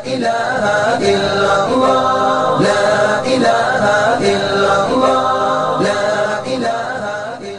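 Outro jingle of chanted vocal music, a short swooping phrase repeating less than a second apart over a steady high tone, fading near the end.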